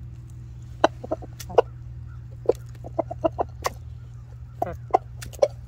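Jersey Giant chickens clucking, about a dozen short clucks scattered over a few seconds as they eat larvae from a hand. The rooster is making food calls, tidbitting to bring the hens over to the food.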